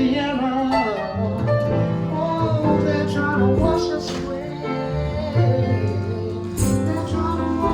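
A live band playing an instrumental passage with no lead vocal, guitar among the instruments.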